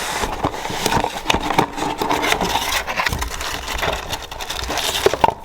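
Rubbing and rustling with scattered clicks and knocks, the sound of parts being handled.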